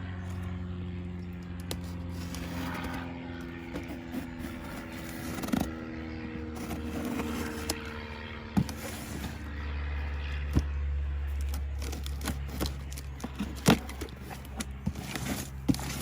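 A cardboard shipping box being opened by hand: scraping, rustling and many short clicks and crackles of cardboard, tape and packing material, over a steady low hum.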